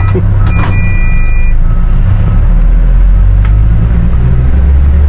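Loud, steady low engine rumble of heavy machinery, with repeating high electronic warning beeps during the first second and a half.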